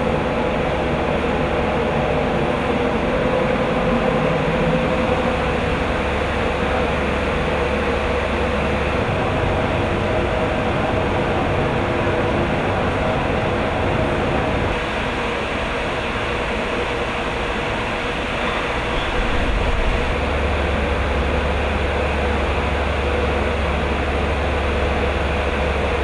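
Ventilation fans and ducted air of an indoor cannabis grow room running steadily, with a low hum and a faint held tone.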